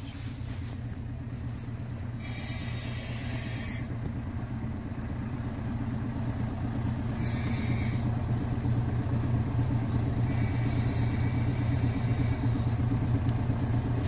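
JR diesel railcar's engine running with a steady low hum, growing louder as the car pulls in and stops alongside. Faint high-pitched squeals come in a few times.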